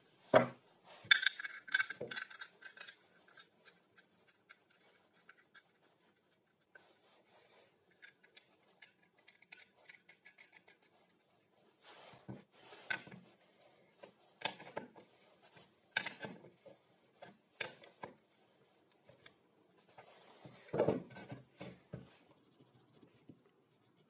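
Plywood jig parts and a threaded steel bolt being handled and fitted together on a wooden workbench. A sharp knock comes about half a second in, then metallic clinking and rattling for a couple of seconds, then scattered knocks and clicks, with a louder cluster of knocks near the end.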